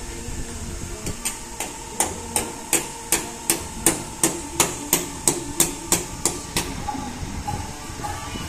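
Hammer blows on the metal of a Toyota BJ40 at the door opening, struck in a steady rhythm of about three a second. Some sixteen blows start about a second in and stop near the end.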